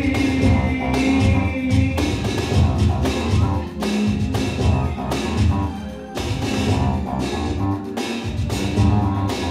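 Electronic music with a steady drum-machine beat and bass, played live from a laptop.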